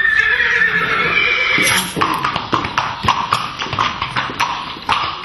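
A horse whinnying for about two seconds, then hooves clip-clopping in a steady rhythm of about three strikes a second.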